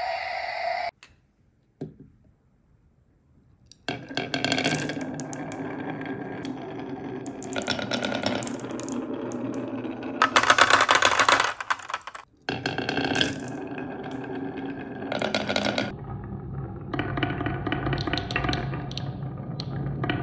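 Glass marbles rolling down the wavy grooves of a wooden slope, a continuous rolling rumble with clicks and rattles as they knock against the wood and each other, and a louder clatter about ten seconds in. A steady electronic tone sounds for about the first second, and about three seconds of near silence follow before the marbles start.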